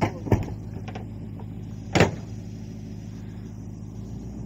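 Pickup truck engine idling steadily, with a few sharp knocks, the loudest about two seconds in.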